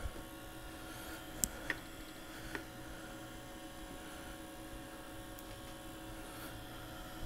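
Steady electrical hum from the powered-on computer and CRT monitor, with a few faint ticks a second or two in.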